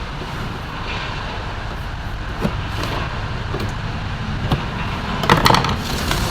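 A few light clicks and knocks from handling the parts of a mixer grinder as it is taken apart, with a small cluster near the end, over a steady low rumble.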